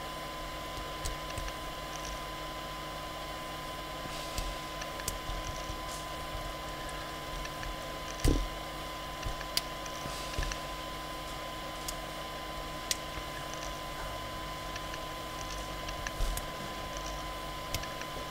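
Scattered faint clicks and taps of a hook pick and tension tool working the pins of a Lori pin-tumbler cylinder lock during single-pin picking, with one louder knock about eight seconds in. Steady background hiss and a thin constant tone run underneath.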